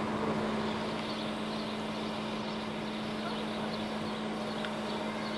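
SA135 diesel railcar standing with its engine idling: a steady drone that holds one pitch throughout.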